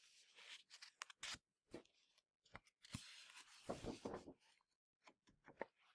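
Faint rustling of a picture book's paper page being turned by hand, with scattered soft clicks and a longer rustle about three to four seconds in.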